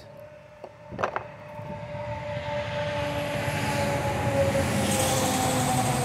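A motor vehicle going by: its noise builds over a few seconds, carrying a steady whine that slowly falls in pitch. A short knock comes about a second in.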